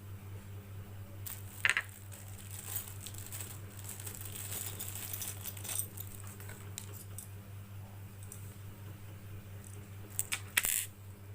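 Unpacking and handling noises: rustling packaging with sharp clicks and clinks, one about two seconds in and a cluster near the end, over a steady low hum.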